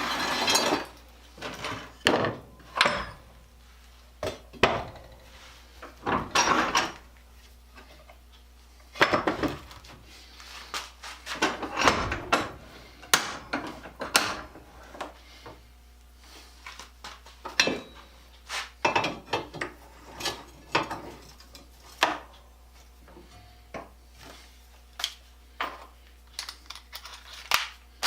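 Metal tools and parts being handled and set down, giving irregular clinks and knocks.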